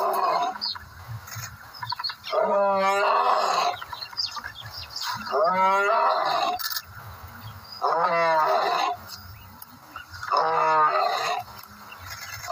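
Male lion roaring: a series of long calls that rise and fall in pitch, each about a second and a half long, coming one after another about two and a half seconds apart.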